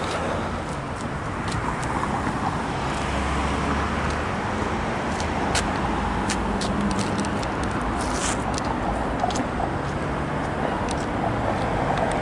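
Street traffic: motor vehicles driving past in a steady wash of road noise and engine hum, with a few light clicks.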